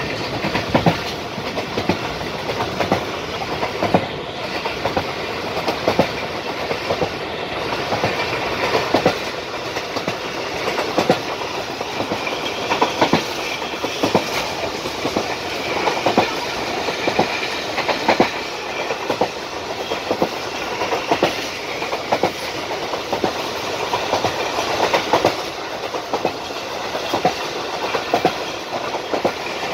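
Train running on the rails, heard from aboard: a steady rumble of wheels on track with a regular clickety-clack as the wheels cross rail joints.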